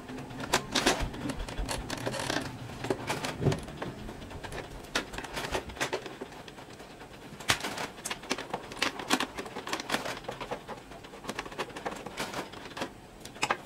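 Irregular plastic clicks and knocks from hands handling an Epson L120 printer's casing and ink tank unit.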